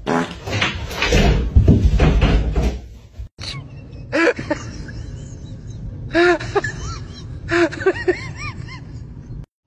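A door being banged and rattled in a quick run of knocks for about three seconds. Then a young child's high voice calls out three short times.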